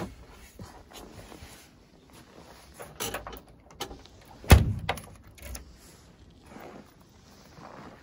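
Boot lid of a VAZ-2107 being shut: a few light knocks, then one loud slam about four and a half seconds in.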